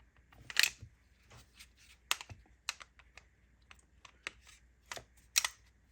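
Irregular sharp metal clicks and light knocks of a 2011 pistol's parts being handled during reassembly, about a dozen in all, the loudest about half a second in and near the end.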